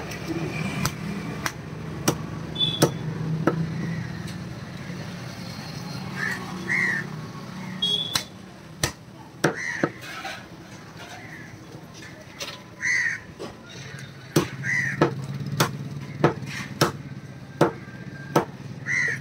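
Heavy butcher's cleaver chopping country chicken into pieces on a wooden log block: irregular sharp chops, roughly one a second. A bird gives short calls about five times between the chops.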